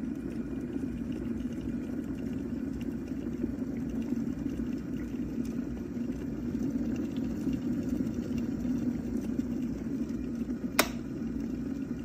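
Tough Mama NTMJK18-G 1.8 L glass electric kettle at a rolling boil, its water bubbling with a steady low sound. About a second before the end comes a single sharp click, the kettle's automatic shut-off switching it off at the boil, while the water keeps bubbling.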